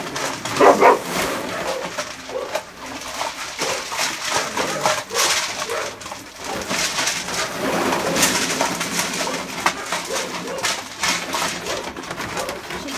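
Hungry dogs crowding in close and eating poured-out food, with chewing and crackly rustling and low throaty grumbles as they jostle over it.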